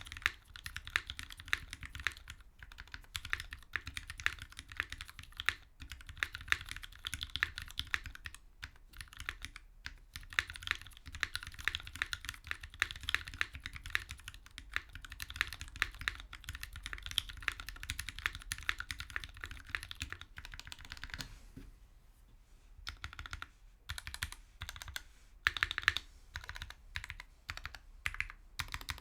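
Typing on a Duck Viper V2 mechanical keyboard with lubed Gateron Black Ink linear switches, a stainless steel plate, no dampening and GMK Space Cadet keycaps. Fast, continuous keystrokes thin out about two-thirds of the way through to scattered single presses with short pauses.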